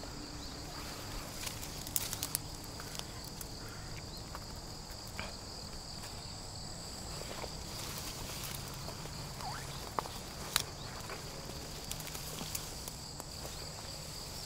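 A steady, high-pitched insect chorus, with a few scattered snaps and rustles of footsteps in bankside vegetation.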